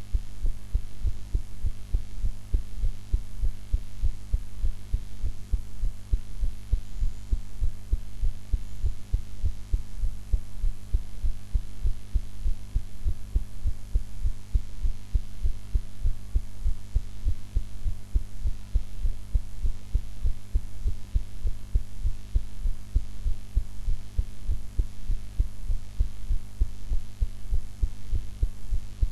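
A woman's heartbeat after eating: steady, evenly repeating low thumps in a regular rhythm, over a steady low hum.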